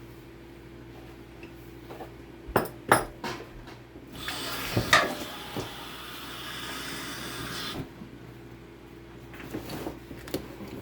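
A few sharp knocks and clatters of parts being handled, then about four seconds of hissing water spraying from the kitchen sink sprayer line, ending suddenly.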